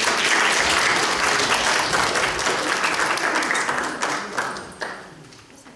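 Congregation applauding, a dense patter of many hands clapping that dies away about four to five seconds in.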